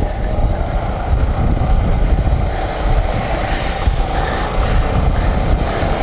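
Wind buffeting the microphone of a camera on a moving motorcycle, a steady rushing noise with the bike's engine and road noise under it.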